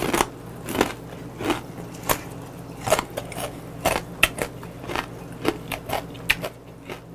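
Close-up chewing of a mouthful of raw, soy-and-chili-seasoned chilge (small mud crabs), the shells crunching roughly twice a second, over a low steady hum.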